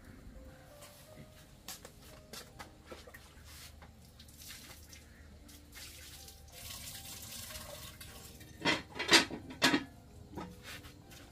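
Water splashing and dripping in a plastic basin as things are washed by hand, with scattered light knocks. Three louder splashes come close together near the end.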